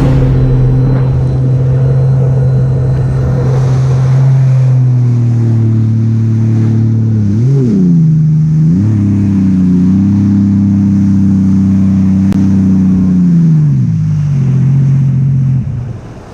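Sea-Doo jet ski engine running hard at steady throttle. Its pitch climbs, wobbles up and down twice, holds, then falls as the throttle eases off near the end.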